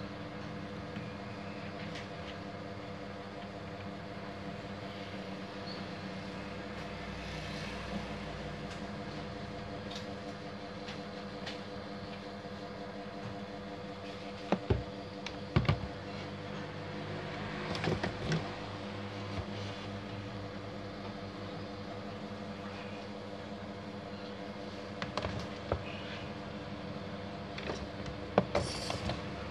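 Plastic parts of a copier unit clicking and knocking as it is handled and taken apart by hand: a handful of sharp clicks, a cluster about halfway through and more near the end, over a steady hum.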